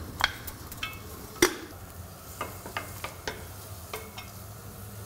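Sliced onions sizzling softly in melted butter in a stainless steel pot while a wooden spoon stirs them, with a scattering of sharp knocks and scrapes of the spoon against the pot, the loudest about a second and a half in.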